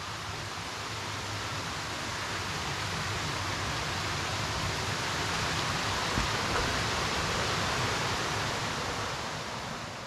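Steady rushing of a rocky mountain creek, an even hiss of flowing water that grows louder over the first half.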